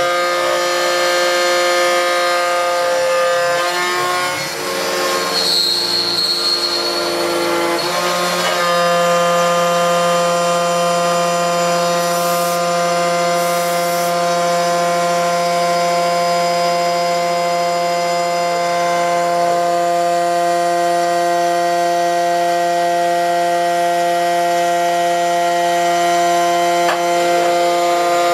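CNC router spindle driving an end mill through an aluminium plate: a steady, loud machining whine with several ringing tones from the cut. The tones shift and glide in pitch over the first eight seconds or so, then hold steady.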